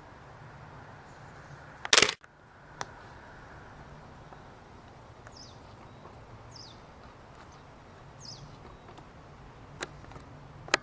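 Waves washing on a beach as a steady hiss and low rumble, with three short, high, falling calls of a warbling white-eye (mejiro) in the middle. A loud sharp knock comes about two seconds in, with fainter clicks after it and near the end.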